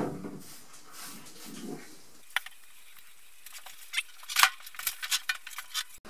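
An LG WM3400C front-loading washing machine being shifted out from the wall on a tile floor, its rubber feet slicked with spray cleaner. Quiet scraping at first, then a quick run of sharp clicks and knocks, the loudest about four seconds in.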